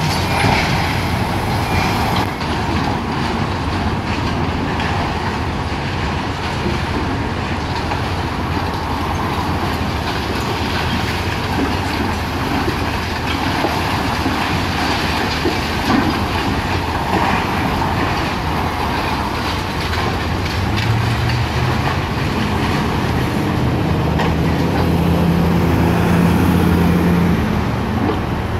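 High-reach demolition excavator at work: its diesel engine runs under load while concrete and rubble crunch and clatter down from the building in a continuous rumble. Past the middle, the engine note steps up in pitch and holds for a few seconds.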